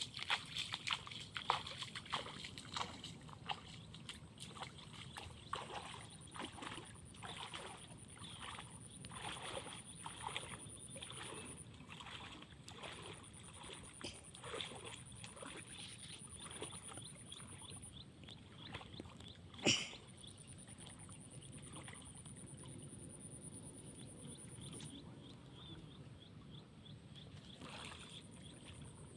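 Faint, irregular splashing and sloshing of water as a small boat is paddled through floodwater, busiest in the first half and thinning out later, with one sharp knock about two-thirds of the way through.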